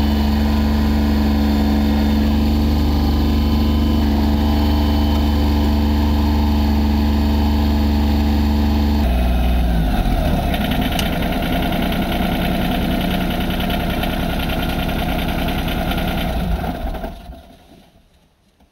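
Massey Ferguson 1020 compact tractor's diesel engine idling steadily, heard from inside the cab. About nine seconds in its note changes to a rougher sound, and it fades away near the end.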